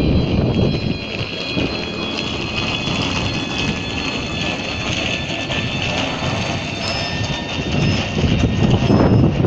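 A train moving along the station track with a heavy rumble. A high squeal of several steady tones from the wheels or brakes runs above it.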